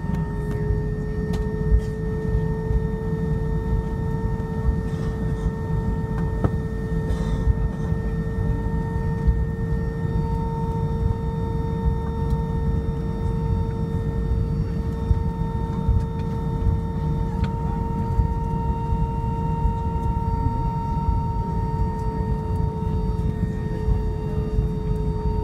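Cabin noise of an Airbus A319 taxiing: the steady low rumble of the jet engines at idle and the wheels rolling on the pavement, with a steady hum held throughout.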